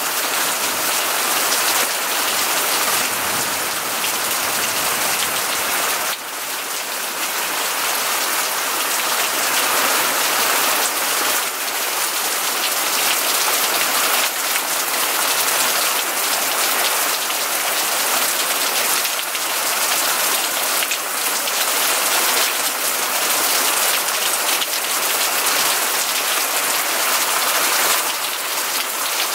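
Heavy rain pouring down steadily, a dense, even hiss of falling water.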